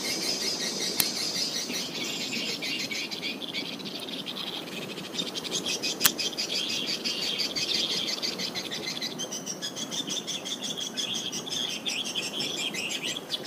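A dense, continuous chorus of swiftlets twittering, many rapid chirps overlapping. A sharp click about six seconds in is the loudest moment, and a fainter click comes about a second in.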